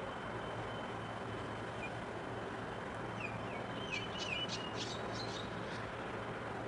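Steady low engine rumble with a constant background hiss, and a small bird chirping a quick run of short high notes partway through.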